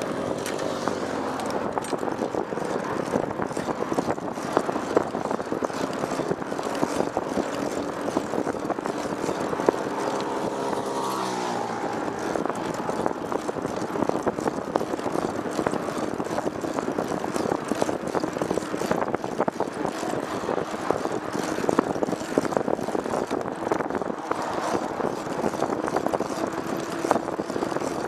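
A vehicle engine running steadily under road and wind noise, its pitch climbing about ten seconds in as it speeds up, then holding steady.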